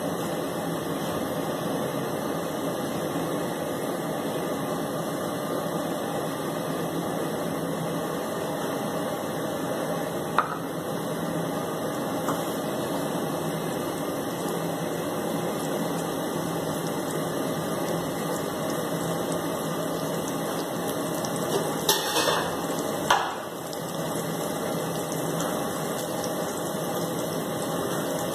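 Oil sizzling steadily in a frying pan as shami kababs shallow-fry. A few light knocks come about a third of the way in and again about three-quarters through, as kababs are set into the pan.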